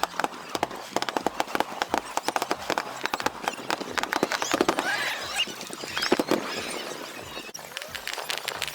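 Aerial fireworks crackling: a dense, rapid run of sharp pops with no break.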